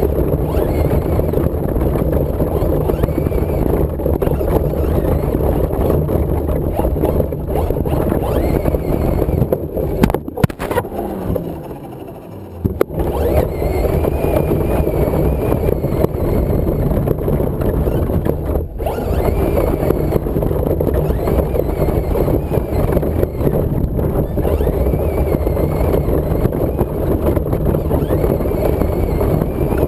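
Traxxas Slash RC short-course truck driving over grass, heard from a camera on the truck itself: a steady, loud, rough rumble of motor, gears and tyres. About eleven seconds in it falls away with a falling whine as the truck slows, then picks up again about a second later.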